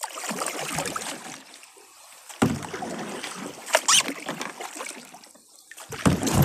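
Kayak being paddled: the paddle splashing and swishing through the water, with a few sharp knocks, about two and a half, four and six seconds in.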